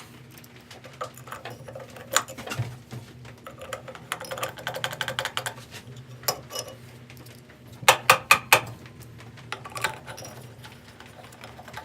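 Small metal clicks and rattles from the bandsaw's wheel parts and screws being handled and screwed back on during reassembly. A dense run of light clicks comes about four seconds in, and a cluster of louder sharp clicks about eight seconds in.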